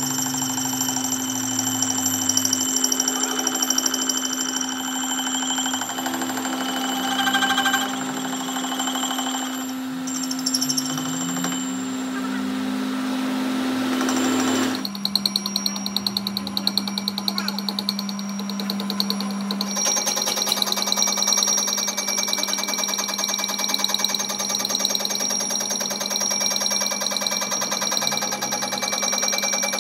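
Metal lathe running and turning a large metal disc, the cutting tool scraping the spinning metal with a steady hum and a fast, even rattle. The hum drops lower about halfway through.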